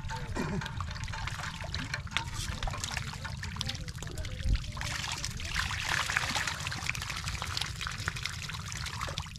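Hands working through wet mud and shallow water: squelching, trickling and many small splashes and clicks, with one heavier knock about four and a half seconds in. Faint voices are in the background.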